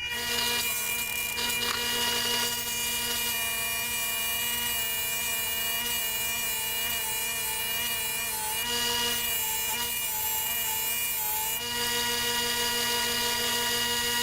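Electric belt sander switched on and running, its motor whining steadily. For a few seconds past the middle the pitch wavers and dips under load as the draw knife blade is held to the belt to sharpen it.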